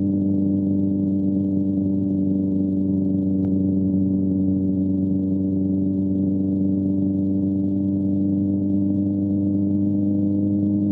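Small quadcopter drone's propellers humming at a steady pitch while it hovers. The hum is unchanging, with a faint tick about three and a half seconds in.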